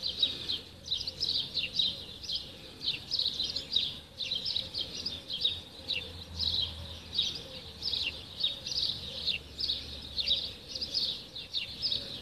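Many small birds chirping together in a dense, continuous chatter of short, quick chirps.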